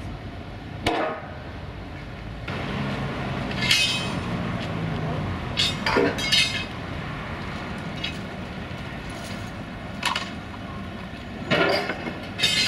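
Steel trailer parts clanking and clinking as a low-loader trailer is dismantled: sharp metallic strikes at irregular intervals, with a cluster near the end, over a steady background rumble.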